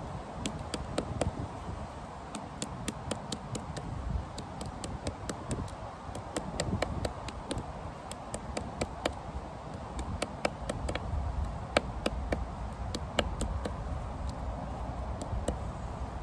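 Rapid, irregular light clicks and knocks, several a second, as a wooden walking stick's hooked handle presses and taps along a fresh nettle stem laid on a fallen log, crushing the stem's stubborn nodes to break down the fibres for cordage.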